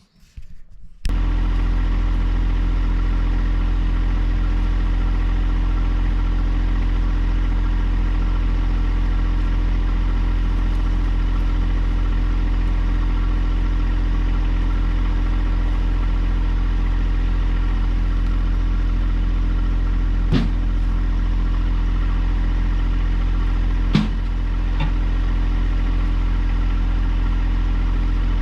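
John Deere 1025R compact tractor's three-cylinder diesel engine running at a steady speed. It comes in abruptly about a second in, with two short knocks a few seconds apart near the end.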